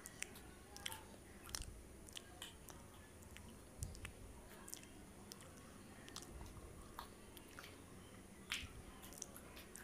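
Close-miked chewing and biting of a soft pav bun, with wet mouth clicks and smacks scattered through. There is a sharper crunch near the end as a raw green chili is bitten.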